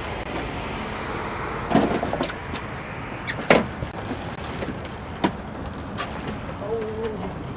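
A few sharp knocks and clicks over a steady hiss, the loudest about three and a half seconds in.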